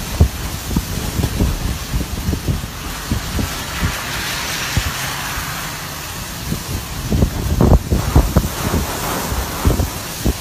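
Violent storm: a steady roar of heavy rain, swelling around the middle, with wind gusts buffeting the microphone in irregular low thumps that are strongest a little past halfway.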